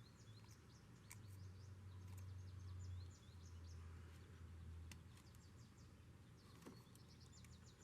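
Near silence: faint birds chirping in the background over a low hum, with a few faint clicks.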